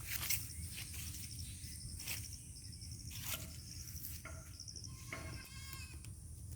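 Short, high trilled chirps repeating every second or so, with a quick run of notes about five seconds in. A few sharp clicks and a low rumble sit underneath.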